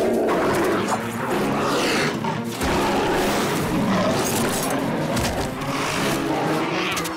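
Dramatic background music under an animated fight between two black panthers, with snarls and hit sound effects.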